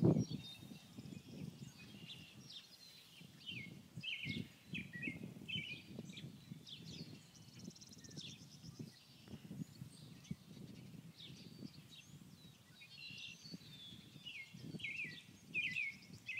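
Songbirds chirping and singing in quick repeated phrases, over an uneven low rumble.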